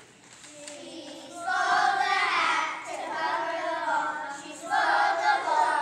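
A group of children singing together in unison, growing loud about a second and a half in.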